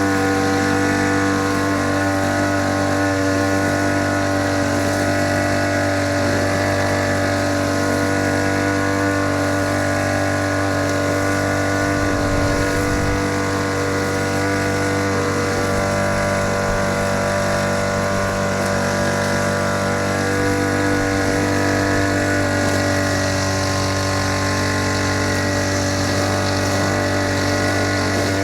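Small engine of a grass-cutting machine running steadily at an even speed.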